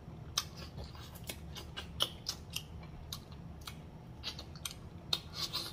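Close-miked mouth sounds of a person chewing food and smacking their lips: an irregular run of short, wet clicks, several a second.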